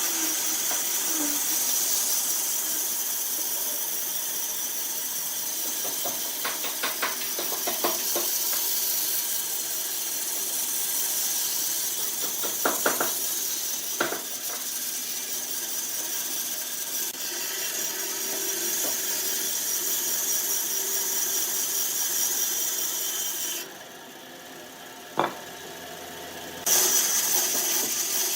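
A power tool running steadily with a high whine, with a few short clicks and knocks. The sound drops away abruptly for about three seconds near the end, a single sharp knock falls in that gap, and then it returns.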